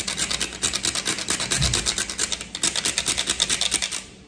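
Cinnamon stick grated on a fine handheld rasp grater in rapid, even scraping strokes, which stop near the end.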